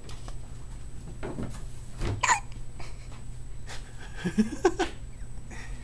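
Newborn baby hiccuping, with a sharp hiccup about two seconds in and more short sounds from him a little before the end.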